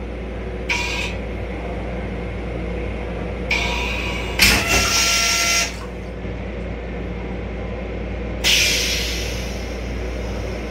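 Stainless-steel railcar toilet on a Metro-North M7 flushing: a short hiss about a second in, then a longer, louder rush as water rinses the bowl, and another hiss near the end that fades away, all over a steady low hum.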